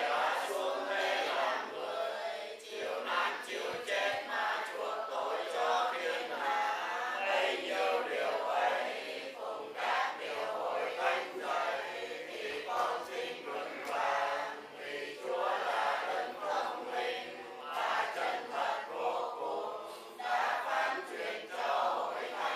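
A group of people chanting prayers together in unison.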